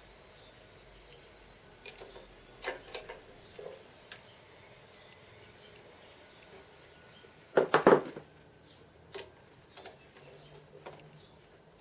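Scattered metallic clicks and clinks of a tap and workpiece being handled while hand-tapping a threaded hole in a steel boring bar, with a louder clatter of knocks about eight seconds in.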